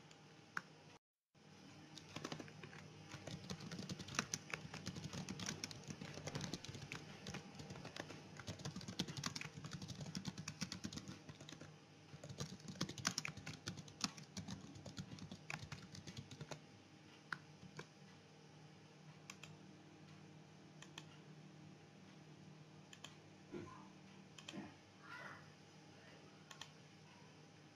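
Faint typing on a computer keyboard: quick runs of keystrokes for the first half or so, thinning to occasional single clicks over the last ten seconds.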